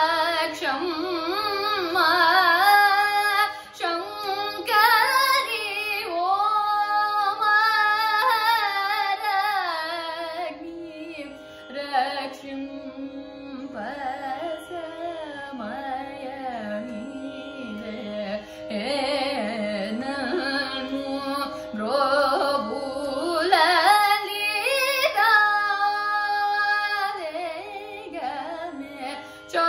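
Female Carnatic vocalist singing long ornamented phrases with sliding, oscillating pitch over a steady drone. The phrases sink lower and softer in the middle and rise again towards the end.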